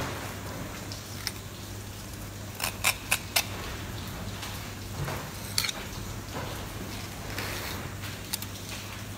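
Fillet knife slicing and scraping along the bones of a flatfish on a plastic cutting board, with a few sharp clicks, four in quick succession about three seconds in.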